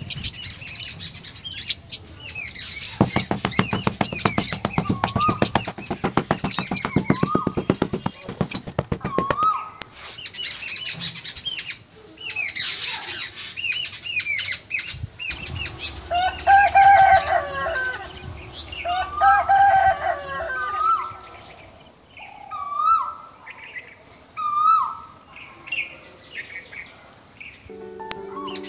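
Birds chirping and calling: many short whistled chirps and trills, with a fast rattling run lasting several seconds near the start. Music comes in just before the end.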